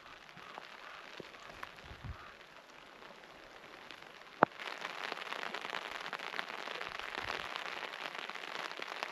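Rain pattering, light at first and then a denser, louder patter from about halfway through, with a single sharp click just before it thickens.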